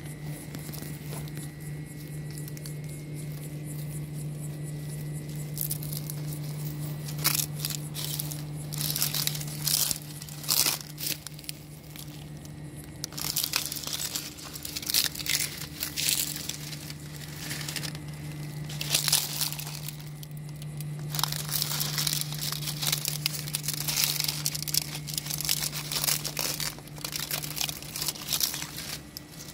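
Dry leaves and twigs crackling and rustling in irregular bursts as a Greek tortoise crawls and pushes through leaf litter, starting about seven seconds in after a quieter stretch. A steady low hum runs underneath.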